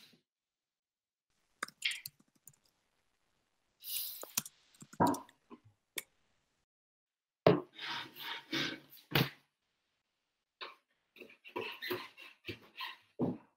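Short bursts of laughter and voice sounds from guests on a video call, cutting in and out with dead silence between, as the call's audio gates open and shut.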